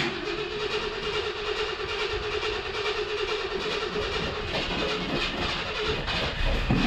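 Starter cranking the V8 engine of a 1967 Ford Thunderbird that has sat unused for over 30 years. There is a steady whine over mechanical noise at first, turning rougher and more uneven with a low rumble from about four and a half seconds in.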